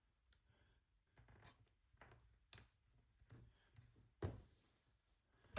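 Faint taps and rustles of paper stickers being handled and pressed onto a planner page, with a sharper tap about two and a half seconds in and a louder thump with a brief rustle a little after four seconds.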